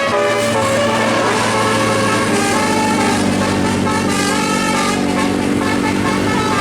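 A passing tour bus's diesel engine running, with a multi-note telolet musical air horn playing a stepping melody over it.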